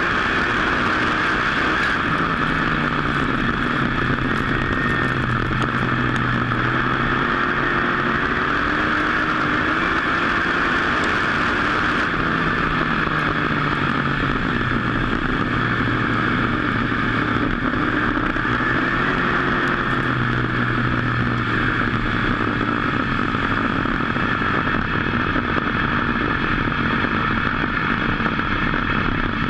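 WISSOTA dirt-track modified race car's V8 engine running hard, heard on board over a steady roar, its pitch rising and falling over and over through the laps.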